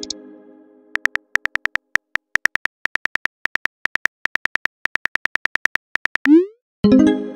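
Simulated phone keyboard clicks, rapid and even, as a text message is typed. A fading chime comes just before the typing, and near the end there is a short rising swoosh of the message being sent, followed by another chime.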